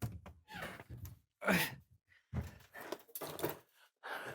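A person sighing and groaning quietly in a string of short, breathy bursts.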